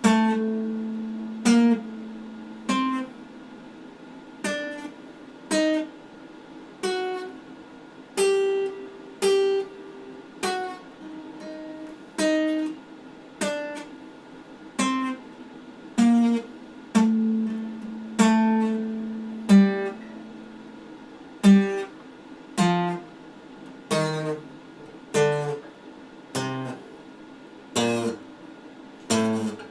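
Acoustic guitar played slowly one note at a time, about one plucked note a second, some notes left to ring longer; the line drops to lower notes in the last few seconds.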